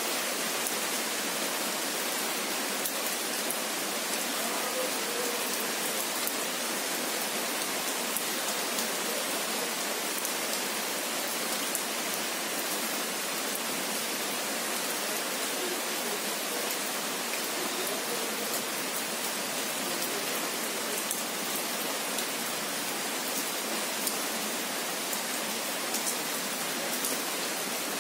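Steady rain falling: an even hiss with scattered faint drop ticks, unchanging throughout.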